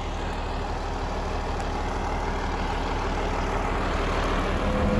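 Tractor engine running steadily while pulling a hay baler, slowly growing louder.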